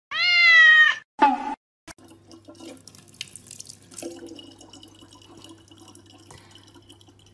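A loud, high-pitched cry about a second long, rising and then held, followed by a shorter cry. After that, a thin stream of water from a tap runs steadily and faintly into a plastic water bottle, over a low hum.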